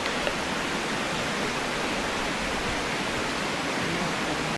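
Waterfall rushing steadily, a dense even roar of falling water that cuts off abruptly at the end.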